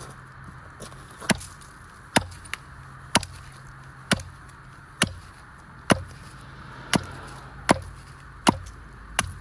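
Steady chopping into a small spruce pole with a blade, one sharp blow about every second, about ten in all.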